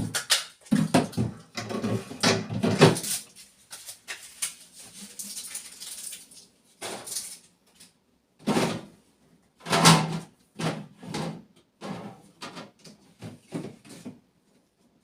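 Irregular knocks, clatters and rattles of a new refrigerator and its parts being handled. The sounds are busiest at the start, come in separate bursts later and stop about a second before the end.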